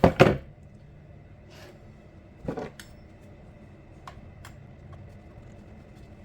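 Handling knocks and clicks of hard parts being worked on a chainsaw: two loud knocks right at the start, another about halfway through, then a few light clicks.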